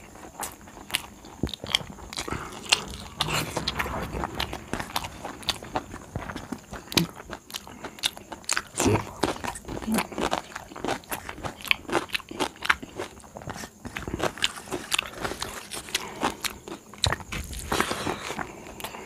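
A person chewing a mouthful of rice and stuffed okra, a busy run of short crunches and wet clicks. Fingers mix rice on a steel plate between mouthfuls.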